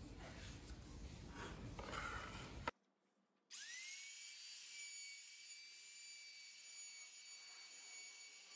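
Light handling and rubbing, ending in a click. About three and a half seconds in, a Bitec trim router starts: its high whine rises quickly to speed, then runs steadily as the router is guided along the edge of the wooden sign.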